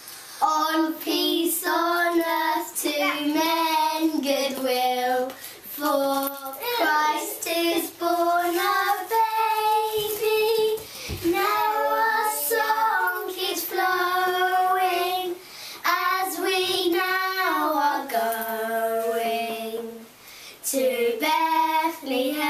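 Two children singing a song together unaccompanied, in phrases of held notes with short breaths between them.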